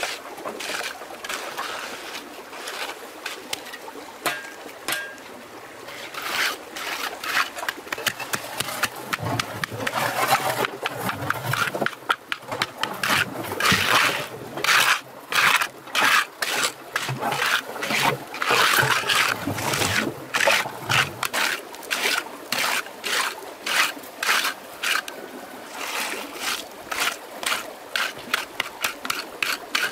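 Water trickling and splashing in a stream, over a dense run of quick, irregular scrapes and splashes that are busiest through the middle.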